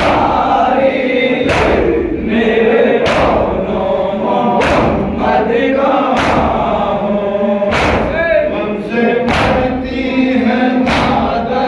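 Men chanting a noha (a Muharram lament) together, with their palms striking their chests in unison (matam) in a sharp slap about every one and a half seconds, seven times.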